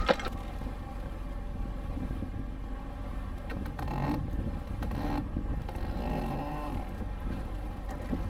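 Steady low rumble of a catamaran's engine running under way.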